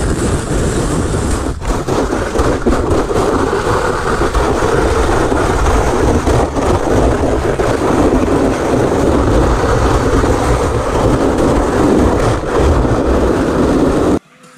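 Sled sliding fast over snow: a loud, steady scraping rush with a heavy low rumble from the sled and the camera riding on it, stopping abruptly near the end.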